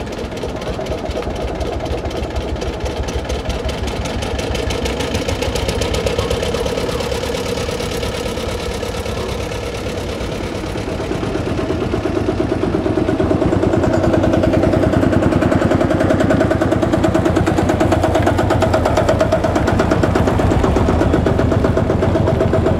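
Old tractor diesel engines running and chugging as tractors drive past. The engine sound grows louder in the second half as one tractor passes close.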